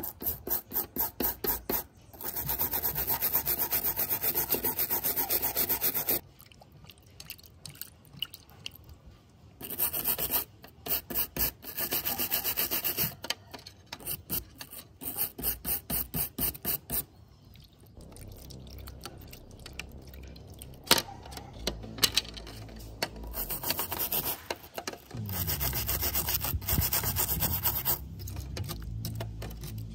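Small brass-bristle brush scrubbing a silver pipe bowl in wet cleaning powder, in runs of quick back-and-forth strokes about four a second with short pauses. In the second half it turns to a softer, wetter scrubbing in soapy foam.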